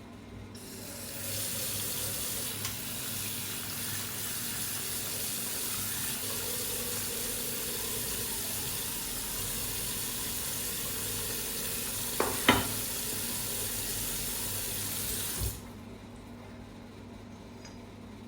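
Water running steadily from a tap into a sink, with a couple of sharp knocks about twelve seconds in; the flow cuts off about three seconds before the end.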